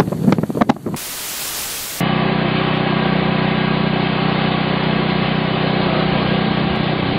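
A one-second burst of static hiss, then a steady, dense rushing noise with a faint low hum underneath.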